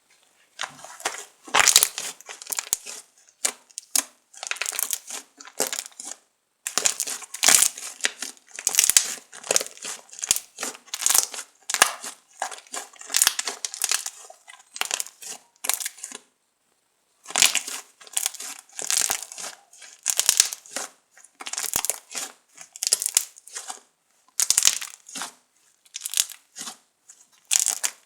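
Fluffy slime being squeezed and pressed by hand, crackling and popping in irregular bursts with a couple of short pauses.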